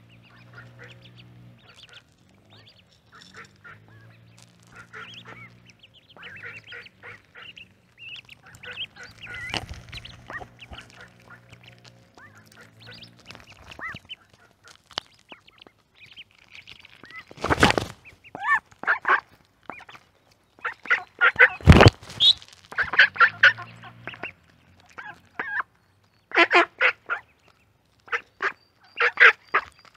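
Mallard hen and ducklings calling close to the microphone: short quacks and duckling peeps, sparse at first and then louder and busier in the second half. Two loud knocks, at about the middle and a few seconds later, are a duck's bill striking the microphone as it feeds.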